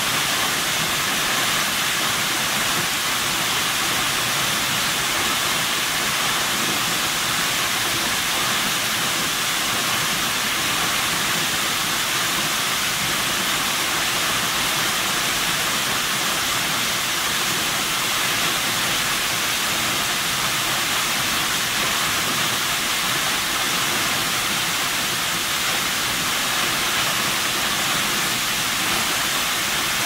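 Waterfall pouring down a rock face: a steady, unbroken rush of falling water with a strong hiss.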